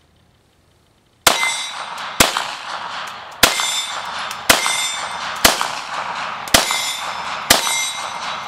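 A string of about eight 9mm pistol shots from a Glock 19 Gen 4, spaced roughly a second apart and starting about a second in, each followed by a ringing tail. The pistol has just had a new ejector fitted to cure its erratic brass ejection.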